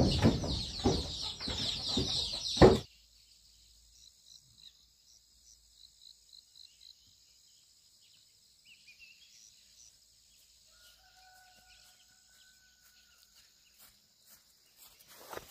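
Chickens squawking and clucking loudly in a flurry for nearly three seconds, cut off abruptly. Then a faint steady high-pitched drone with a few faint short calls.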